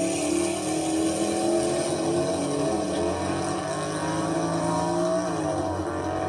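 A motor vehicle engine running steadily, its pitch drifting slowly up and down.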